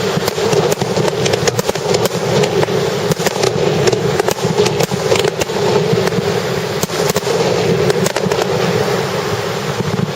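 A starmine fireworks barrage: many aerial shells bursting in quick succession, a dense, continuous run of booms and crackles.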